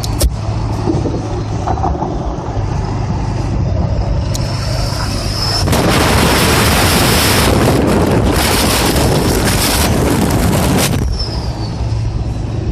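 7.3-litre turbodiesel engine running under way with its turbo whistling as a thin high tone over the steady engine drone. From about six seconds in to about eleven seconds in, a loud rushing noise covers it, then drops away.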